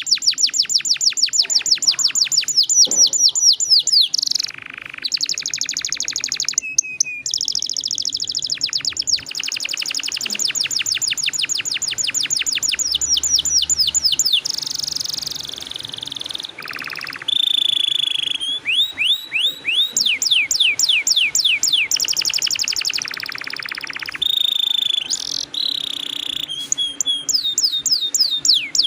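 Domestic canary singing a continuous song of fast trills and long rolls. Each phrase is a rapid train of repeated down-sweeping notes lasting a few seconds, and the bird switches to a new trill type after each short break.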